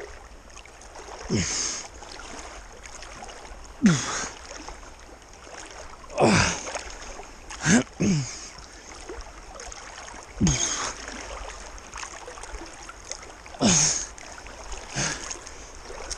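Swimmers stroking hard against a river current: a loud splash of arms hitting the water about every two seconds, over the steady rush of the stream.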